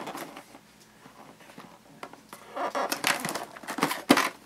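Toy box packaging being handled, with scratchy rustling in the second half and a sharp click near the end.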